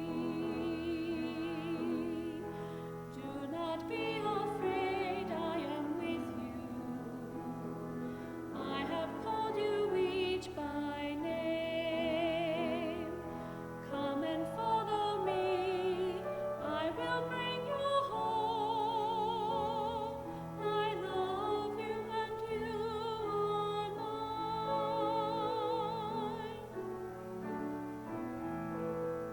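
Classical-style solo singing with a wide, wavy vibrato on held notes, over a steady keyboard accompaniment.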